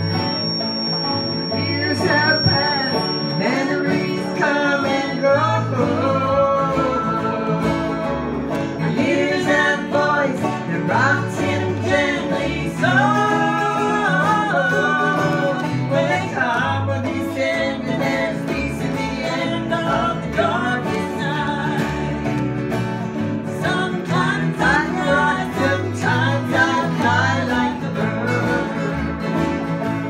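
Small acoustic band playing a country-bluegrass song: several strummed acoustic guitars and a banjo, with a woman singing the melody.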